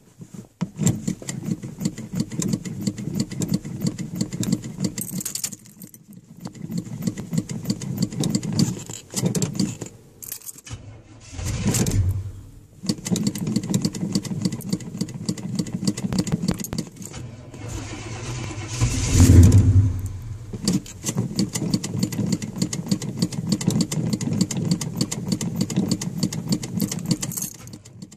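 1978 Chevrolet C10 pickup's engine cranking over on the starter in several long bursts during a cold start while the gas pedal is pumped. It fires up louder twice for about a second but does not catch, as a flooded engine does.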